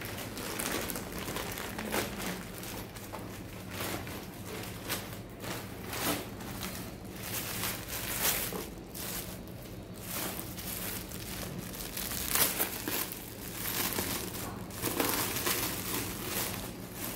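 Plastic packaging crinkling and rustling in irregular crackles as a plastic courier mailer and a clear plastic clothing bag are handled and opened by hand, over a steady low hum.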